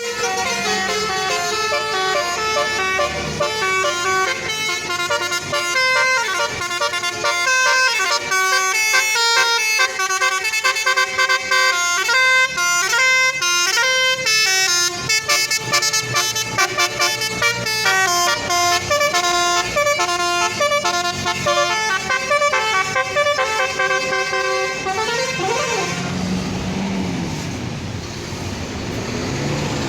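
Telolet bus horn, a set of multi-tone air horns, playing a fast tune of quickly changing notes. About 26 seconds in the tune stops, leaving only vehicle and engine noise.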